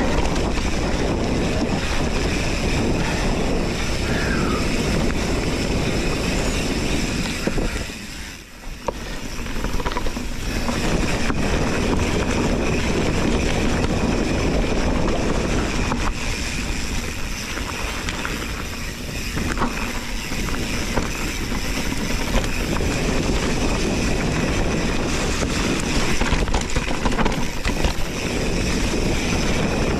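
Wind buffeting an action-camera microphone as a mountain bike rolls down a trail, with the tyres and frame giving off scattered small knocks and rattles. The noise eases off briefly about eight seconds in, then picks back up.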